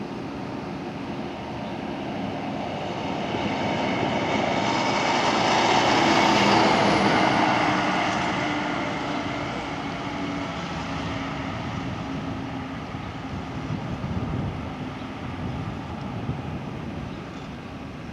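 A vehicle drives past: engine and road noise build to a peak about six seconds in, then fade away slowly.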